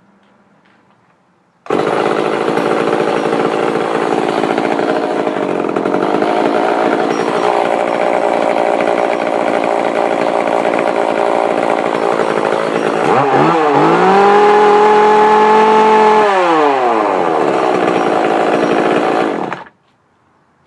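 Echo CS-341 two-stroke chainsaw running steadily, then revved up about two-thirds of the way through, held high for a few seconds and let fall back. The engine sound starts suddenly after a short quiet and cuts off suddenly near the end.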